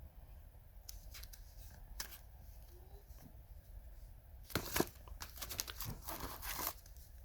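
Cardboard and packaging of an old boxed firework set rustling and scraping as it is handled: a few light clicks, then a louder stretch of rustling about halfway through.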